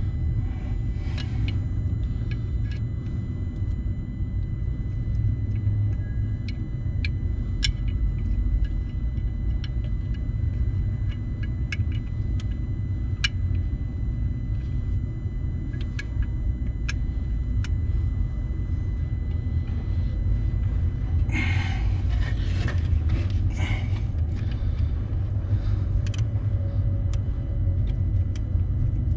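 A steady low rumble throughout, with scattered light clicks and taps of hand tools on metal parts of a skid steer, and a short rustling clatter about three-quarters of the way in.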